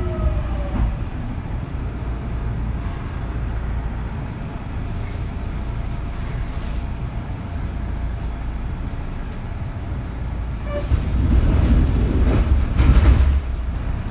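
Interior running noise of a Kintetsu 3200 series motor car: a steady low rumble, with the falling whine of the Mitsubishi GTO VVVF traction motors fading out just after the start. About eleven seconds in a louder, rushing surge of wheel and track noise rises and lasts a couple of seconds before dropping back.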